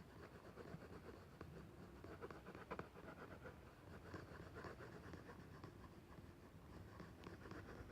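Faint scratching of an art marker stroking across paper, many short strokes with small ticks as the tip touches down.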